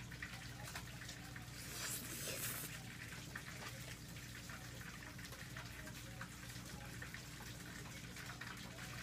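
Slurping of spicy Korean instant noodles sucked up from a bowl with chopsticks, one louder wet slurp about two seconds in and faint chewing clicks after, over a steady low hum.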